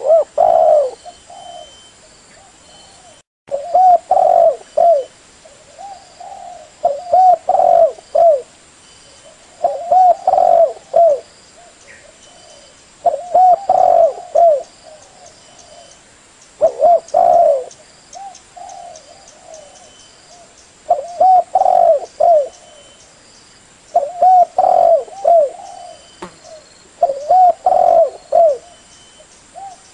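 A dove cooing close by: a short phrase of several low coos repeated about every three and a half seconds.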